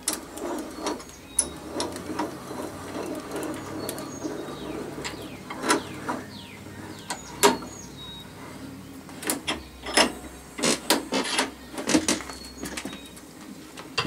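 Scattered sharp metal clicks and knocks of a vacuum-cleaner motor stator being handled and clamped in a bench vise, coming thicker in the second half, over a faint low hum.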